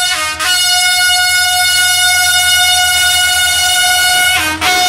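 Locomotive horn held in one long high blast, broken briefly near the start and again near the end by short lower notes, over the low rumble of the locomotive passing close by.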